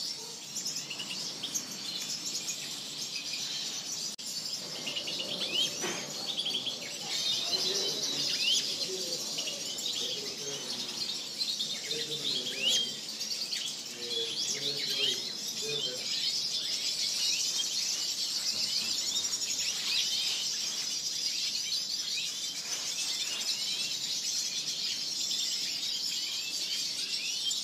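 A flock of European goldfinches chirping and twittering together, a dense, unbroken chorus of high, quick calls overlapping one another.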